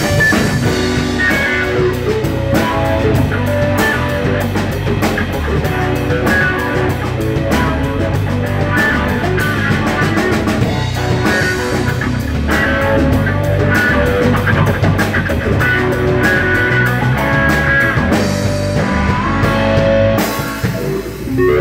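Live rock band playing, led by an electric guitar with sustained, bending lead notes over bass guitar and a drum kit.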